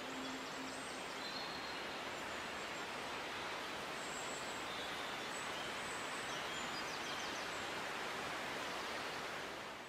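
Steady outdoor ambient hiss with a few faint, brief bird chirps. The last held sung note fades out in the first second, and the sound fades away at the very end.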